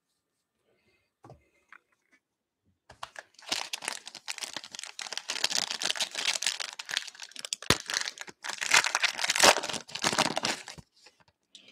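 Foil wrapper of a 2022 Panini Capstone baseball card pack being torn open and crinkled by hand: a dense crackling that starts about three seconds in and runs for several seconds, with one sharp click partway through.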